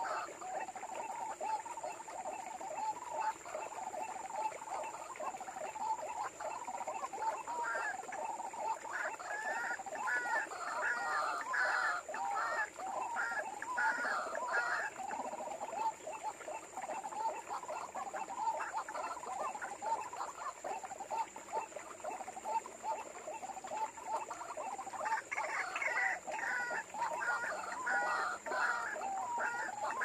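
White-breasted waterhen calls: a continuous run of repeated croaking notes, with a higher, faster series of notes breaking in about a third of the way through and again near the end. A steady high-pitched tone sits underneath.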